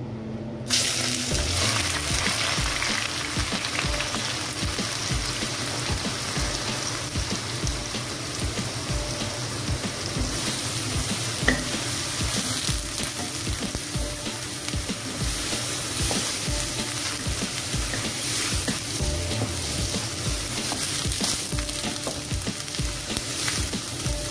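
Ground onions dropped into hot oil in a non-stick wok, bursting into a sizzle about a second in, then frying steadily as a wooden spatula stirs them around the pan.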